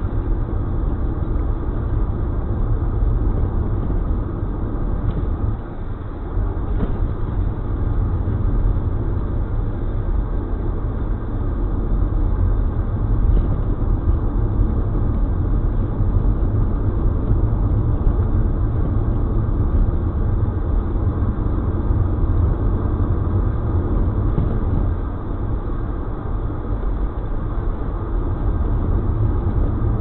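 Steady low road and engine rumble heard inside a car cabin while it tows a trailer at highway speed, with a brief dip in loudness about six seconds in.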